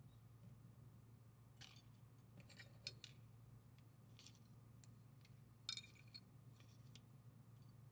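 Faint, scattered clicks and clinks of small folding-knife parts, carbon-fibre handle scales, a steel liner and screws, being handled and set down on a cutting mat while the Hogue Deka is taken apart. The loudest cluster of clicks comes a little past halfway, over a low steady hum.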